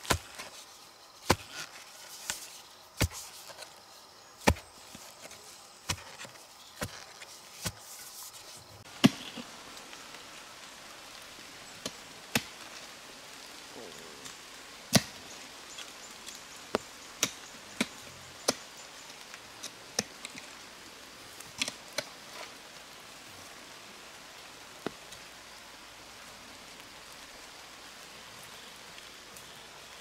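A hand digging tool striking into the ground again and again while a hole is dug for a post: sharp separate strikes about once a second at first, then more irregular and spaced out, stopping a few seconds before the end.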